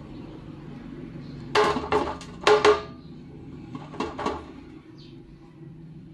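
Plastic spatula knocked against a stainless steel tray to shake off sticky mashed taro: two pairs of sharp knocks with a brief ring about a second and a half in, then two lighter knocks about four seconds in.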